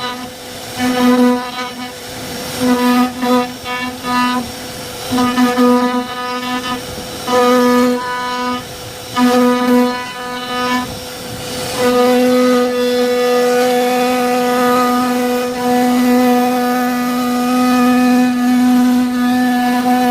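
CNC wood-carving router running, giving a single unchanging pitched whine with overtones. The whine cuts in and out in short bursts as the machine moves, then holds steady from about twelve seconds in.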